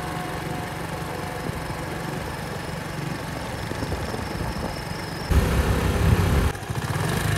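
Engine of a moving vehicle running steadily, with road and wind noise. A louder stretch of about a second begins and ends suddenly near the end.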